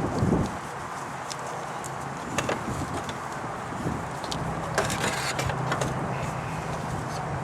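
Hands working parts loose in a car's engine bay: scattered light clicks and knocks of plastic and metal, with a longer scraping rustle about five seconds in, over a steady low hum.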